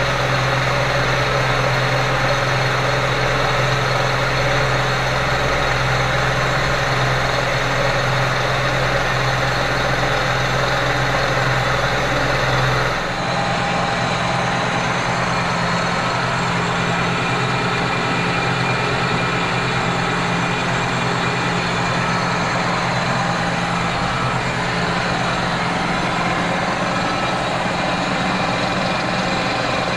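Kearney & Trecker horizontal milling machine running, with two side-milling cutters on the arbor climb-milling both sides of a cast iron plate at once. It is a steady machine hum and cutting noise, and the hum's pitch and overall tone change about thirteen seconds in.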